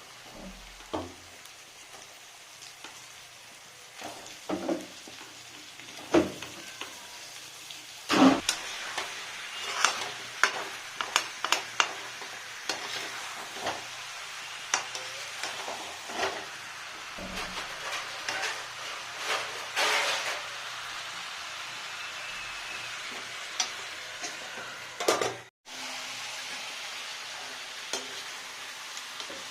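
Chicken sizzling as it fries in a pan, with a spoon scraping and knocking against the pan as it is stirred; the clatter is busiest in the middle stretch.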